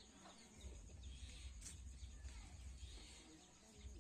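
Faint rural outdoor ambience with distant birds chirping now and then.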